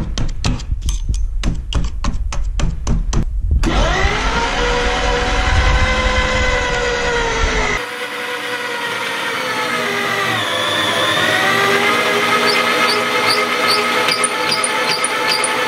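Electric meat grinder grinding something crunchy into powder. It starts with a rapid run of knocks and crunches, then settles into a steady motor whine. About ten seconds in the pitch sags as the motor labours under the load, then climbs back.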